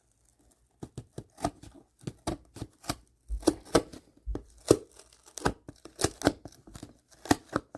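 A cardboard shipping box being worked open by hand: a run of sharp, uneven clicks and knocks, about three a second, starting about a second in.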